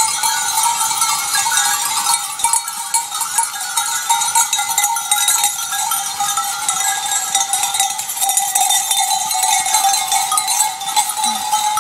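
Bells worn by a moving herd of goats jangling and clanking continuously, a dense chiming at several pitches at once.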